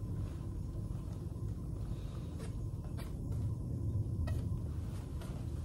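Wall-mounted washroom hand dryer blowing steadily, heard as a low rumble, with a few faint ticks over it.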